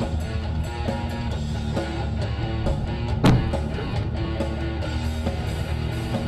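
Rock music with electric guitar over the dashcam footage, with one sharp bang about three seconds in.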